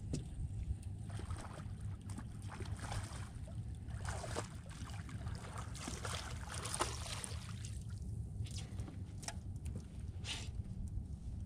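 Wind rumbling on the microphone over water lapping at a small boat, with scattered splashing and clicks as a hooked catfish is reeled to the boat and lifted out near the end.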